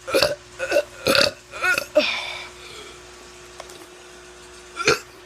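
A teenager burping on purpose: about five short burps in quick succession in the first two and a half seconds, then one more burp near the end.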